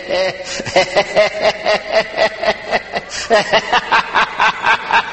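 A man speaking in tongues: a fast, even run of short repeated syllables, about six a second, at a fairly steady pitch.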